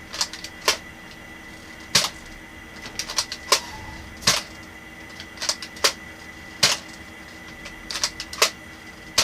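Spring-powered Nerf dart blaster being primed and fired at a wall, heard as a string of sharp plastic clicks and snaps. There are about a dozen, some single and some in quick clusters.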